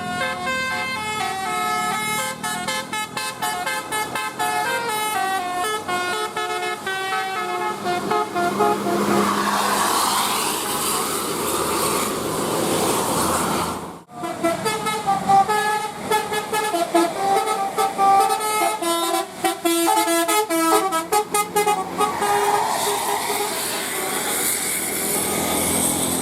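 Indonesian 'telolet' multi-tone bus air horns playing quick melodic runs, the pitch stepping from note to note. A rushing noise rises under the horns for a few seconds before the middle. The sound cuts off briefly about halfway through, then the horn tunes start again.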